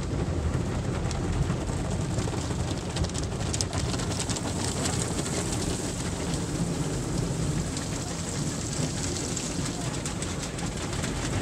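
Water jets and foam spraying and spattering steadily over a car's windshield and body in an automatic tunnel car wash, heard from inside the car, over a steady low rumble.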